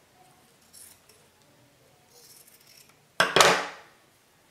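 Steel fabric scissors snipping denim softly a couple of times, then a loud clatter about three seconds in as the scissors are put down on the table.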